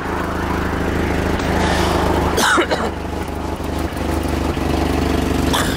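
Toyota pickup's engine running steadily at low revs in low-range first gear as the truck crawls over rocks without throttle. A short higher-pitched sound comes about two and a half seconds in.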